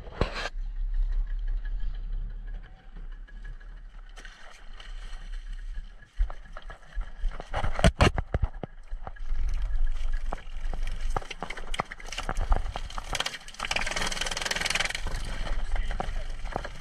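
Low rumble with scattered knocks and clatter, one loud knock about eight seconds in and a hissing rush near the end, typical of a small boat at sea.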